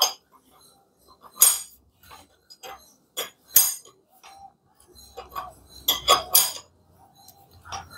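Sharp metallic clinks of a long wrench and socket on the crankshaft bolt as the Bolero's three-cylinder mHawk engine is turned over by hand: single clinks a second or two apart, then a quick cluster of them over a low rumble about five to six seconds in.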